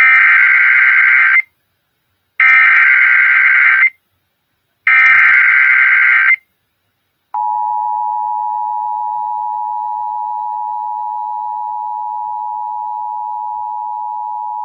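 Emergency Alert System SAME header: three bursts of data tones, each about a second and a half long with a pause between them. About a second after the last burst, the steady two-tone EAS attention signal starts and holds, opening a new alert.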